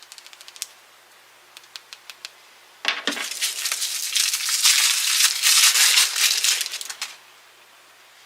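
Light clicks and taps of small plastic packaging being handled, then about three seconds in a loud crinkling of a plastic toy wrapper being opened and crumpled, lasting about four seconds and then stopping.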